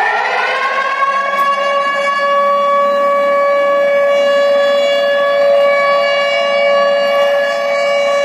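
Air-raid warning siren sounded through the street loudspeakers of a public alert system. Its tone rises in pitch at the start and settles into a steady, held note about a second in.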